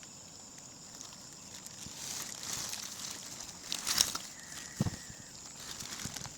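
Quiet outdoor ambience with a steady high-pitched hum, light rustling and handling noise, a sharp click about four seconds in and two dull thuds just after.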